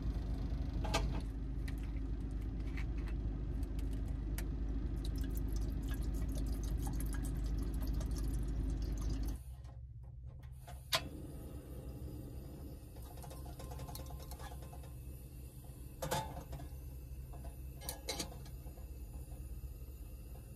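Small plastic clicks and knocks from handling a plastic container and its clip handles, over a steady low rumble. Then the rumble drops to a quieter hum, with one sharp click and a few knocks as a portable cassette gas stove and kettle are set up.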